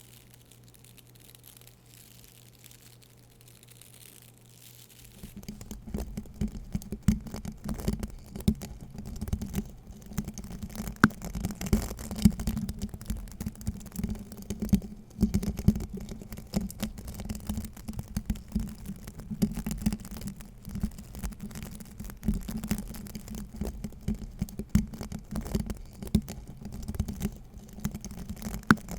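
Faint hiss for about five seconds, then a brush scrubbed rapidly and continuously, a dense scratchy rustle of many quick strokes.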